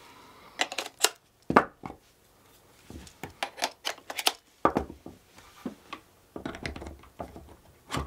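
Falcam quick-release side handles and mounts being snapped onto a camera cage and handled: a string of sharp clicks and clacks, bunched in quick clusters with short pauses between them.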